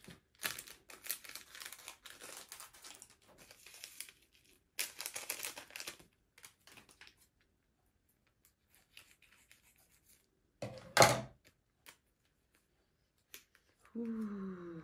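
Plastic instant-noodle sauce sachets crinkling as they are handled, snipped open with scissors and torn, in stretches over the first six seconds. A sharp click comes about eleven seconds in, and a short falling tone near the end.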